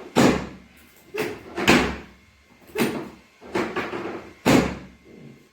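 Chiropractic adjustment thrusts on a treatment table: about six sharp thumps, each dying away quickly.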